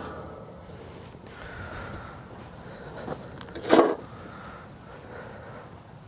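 A steel drum lid set down on bare ground, one short clunk about four seconds in, against a quiet background.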